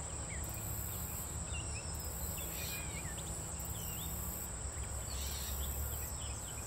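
Outdoor ambience carried by an insect's steady, high-pitched trill, with a few faint bird chirps and a low rumble beneath.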